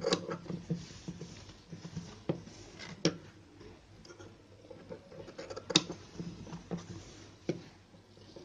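Scissors snipping off the frayed fabric edges around a freshly sewn blouse neckline, a few sharp, irregularly spaced snips among the soft rustle of cotton cloth being handled.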